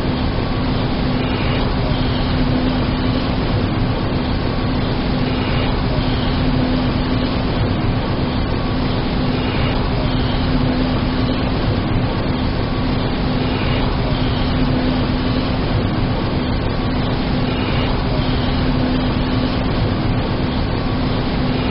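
80 MW electric arc furnace running under power: a loud, steady noise with a constant low hum underneath.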